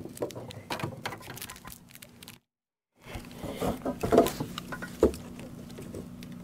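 A freshly caught black crappie being handled on a boat deck: scattered taps, knocks and small thumps as it is carried and laid on a measuring board. The sound cuts out completely for about half a second a little over two seconds in.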